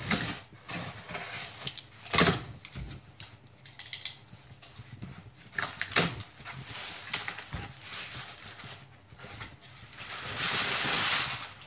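Cardboard shipping box being opened by hand: a box cutter run along the packing tape, then the flaps pulled open, with a few sharp knocks and cardboard scraping, and a longer stretch of rustling near the end.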